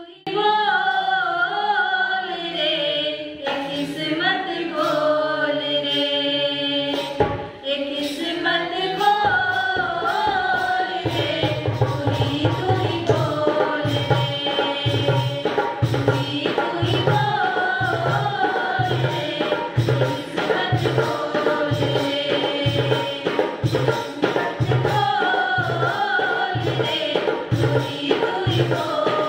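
A mixed group sings a Hindi devotional bhajan together, the melody rising and falling. About ten seconds in, a dholak drum joins with a steady beat, a little more than one stroke a second.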